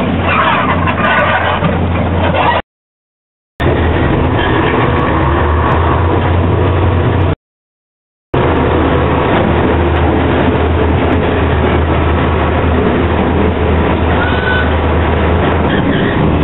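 Small diesel locomotive's engine running steadily with a constant low hum, first heard from beside the line and then from inside its cab while it travels along the track. The sound cuts out twice for about a second.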